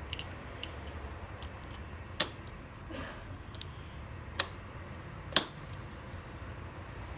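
Small metal parts of a mortise lock clicking as they are handled and fitted during reassembly: scattered light clicks, with sharper ones about two, four and a half and five and a half seconds in, the last the loudest.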